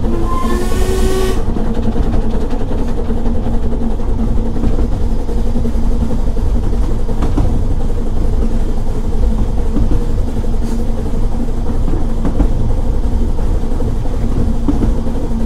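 The double Fairlie steam locomotive Merddin Emrys gives a short whistle blast of about a second and a half, rising slightly in pitch, then the train runs on with a steady loud rumble of wheels and running gear and a few faint clicks.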